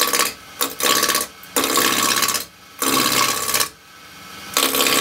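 Roughing gouge cutting a spinning spindle blank on a wood lathe, rounding it from square toward a cylinder. It comes as about five short cuts of up to a second each, with the lathe running more quietly in the brief pauses between.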